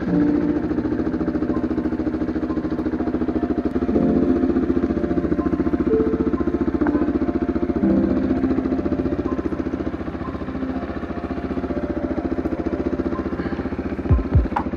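KTM single-cylinder motorcycle engine running just after starting, then pulling away over a dirt track, its note stepping up about four seconds in and again about eight seconds in. A couple of low thumps near the end.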